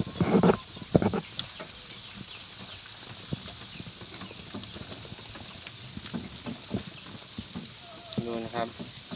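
Dense chorus of hundreds of farmed crickets chirping in a steady high-pitched trill. There is a burst of rustling and knocking in the first second, and a person's voice comes in briefly near the end.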